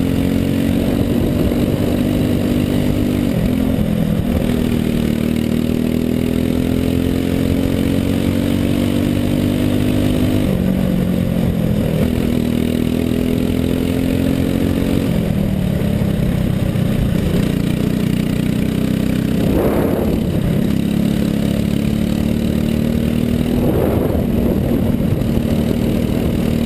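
Four-stroke kart engine at race pace, its pitch climbing slowly on each straight and dropping sharply as the throttle is lifted for the corners, about five times.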